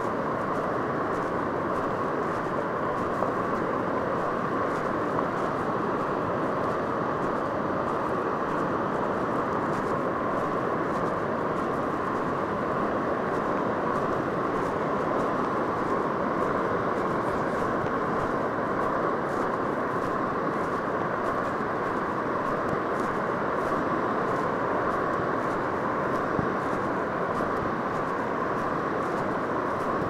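Steady roar of ocean surf mixed with wind on a beach, even in level with no breaks.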